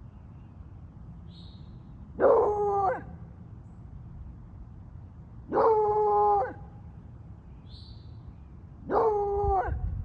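A dog gives three short, howl-like whining calls, each just under a second long, a few seconds apart.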